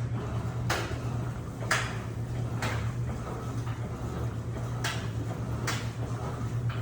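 Electrolux LPE16 washing machine running with a steady motor hum. Water sloshes in five short swishes, roughly one a second with a pause in the middle, as it washes a double duvet.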